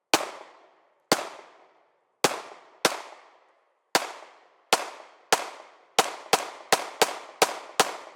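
AR-15 rifle firing about thirteen shots, roughly a second apart at first, then quickening to two or three a second near the end, each shot with a short echoing tail.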